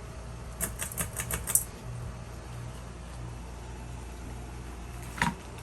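Ceiling fan pull-chain switch being worked to change speed: a quick rattle of about six clicks about half a second in, and a single click near the end, over the steady hum of a room air conditioner.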